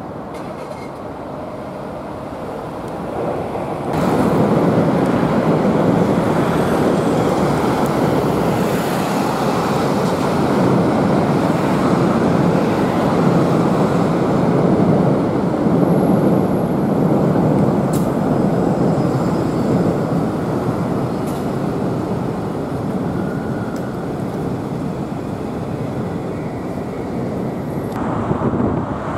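City road traffic: a steady rumble of passing cars and trucks, getting suddenly louder about four seconds in.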